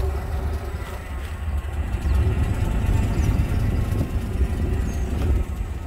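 A car driving slowly: a steady low rumble of engine and road noise.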